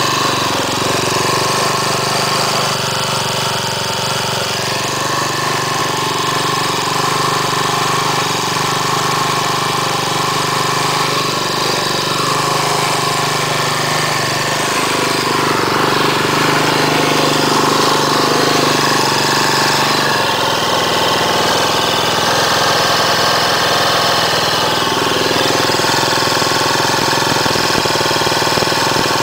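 Pocketbike's 90cc four-stroke single-cylinder engine running on its stand, its speed shifting up and down a few times. This is its test run after a piston seizure.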